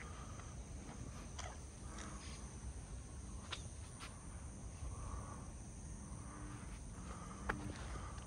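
Faint outdoor ambience: a low steady rumble, a thin high steady hum of insects, and a few scattered sharp taps.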